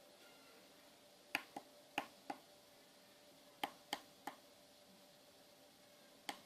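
Small tactile push buttons on a DSO138 oscilloscope kit being pressed, sharp clicks in groups of two or three, about nine in all.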